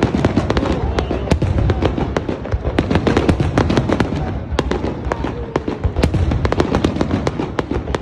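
Fireworks display: many sharp bangs and crackles in close succession over a low rumble, with music playing.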